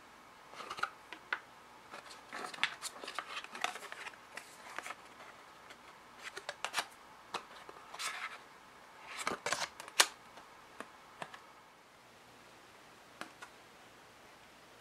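Handling sounds of cards and a small spring bar tool being taken out of a cardboard watch box: quiet rustles and light taps with scattered sharp clicks. The sharpest click comes about ten seconds in, and the sounds trail off to a couple of small ticks near the end.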